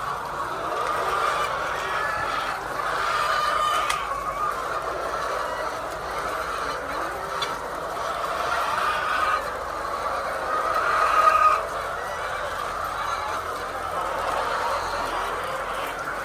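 A flock of laying hens clucking and calling over one another in a steady, dense din, with one louder call about eleven seconds in.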